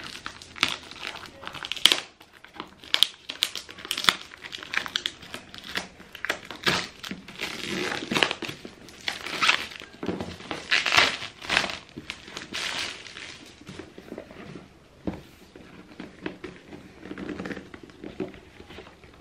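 Clear plastic wrapping being torn and pulled off a cardboard box, crinkling and crackling in quick irregular bursts. It is busiest for the first two-thirds and thins out near the end.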